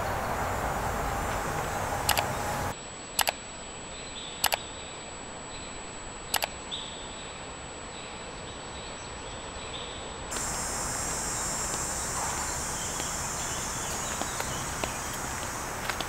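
Steady outdoor woodland background noise, broken for several seconds by a quieter inserted clip carrying a few sharp mouse clicks of a like-and-subscribe button animation. Faint footsteps on a dirt path near the end.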